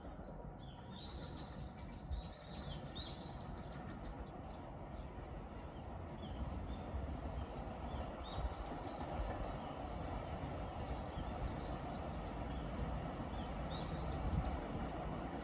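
Small birds chirping several times over a steady low rumble that slowly grows louder: a distant container freight train hauled by an EF210 electric locomotive running along the shoreline track.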